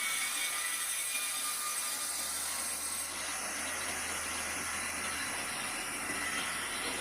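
Sawmill machinery running steadily: a continuous mechanical noise with a high whine over a low hum.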